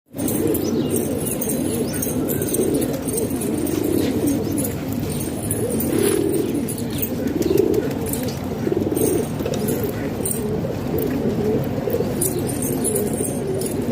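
Flock of domestic pigeons cooing, many low coos overlapping without a pause.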